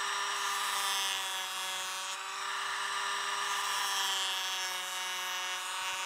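Bosch Professional cordless power planer running with a steady whine, its pitch dipping slightly now and then, while it shaves about 2 mm off the edge of a white skirting board.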